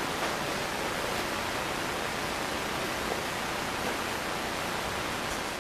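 Steady, even background hiss, with a couple of faint light taps as plastic toy horse figurines are moved about by hand.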